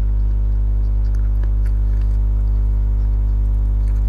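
Steady low electrical mains hum with a stack of overtones, the loudest sound throughout. A few faint soft clicks of someone chewing food sit on top of it, about one to two seconds in.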